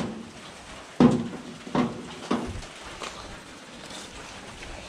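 Three knocks of welding gear being set into the compartment of a homemade welded metal welding cart, the first about a second in and the other two close together after it.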